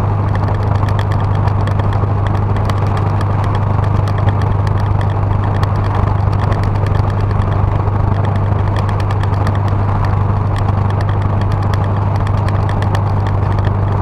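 1977 Ford Ranchero GT's 351 Windsor V8 running steadily on its rebuilt carburetor, a constant low hum with no change in pitch or level.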